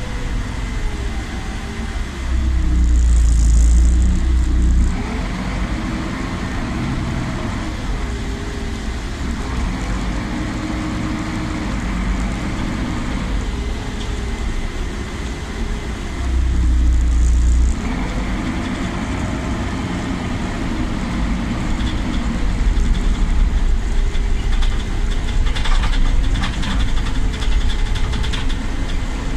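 Interior sound of a Solaris Urbino 12 city bus: its engine and drivetrain running, the pitch rising and falling again and again as it pulls away and changes gear, over road rumble. There are two spells of heavier low rumble, about two seconds in and again past the middle, the first with a brief hiss.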